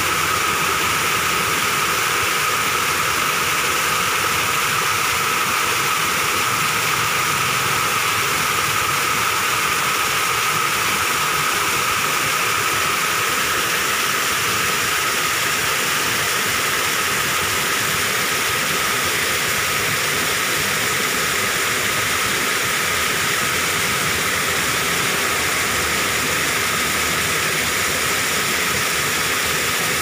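Small waterfall, thin streams of water falling down a rock face: a steady, unbroken rush of falling and splashing water.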